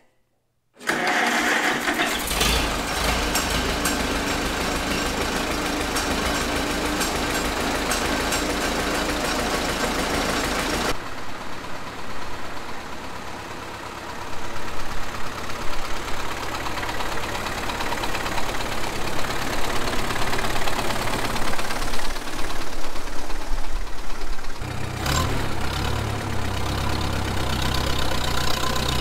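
1942 Silver King Model 41 tractor's four-cylinder engine starting up about a second in and then running steadily. The sound changes abruptly twice: it drops back and grows more distant for a few seconds, then comes in louder and more uneven as the tractor drives off.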